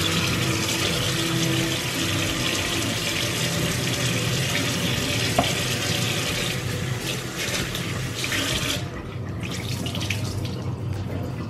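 Kitchen sink tap running steadily into a sink during hand dishwashing, the water splashing in the basin. About nine seconds in, the rush thins and breaks up as a sponge is rinsed under the stream.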